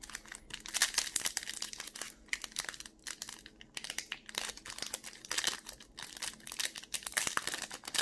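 Foil wrapper of a Pokémon Cosmic Eclipse booster pack crinkling and tearing as it is pulled open by hand, in irregular crackling spurts.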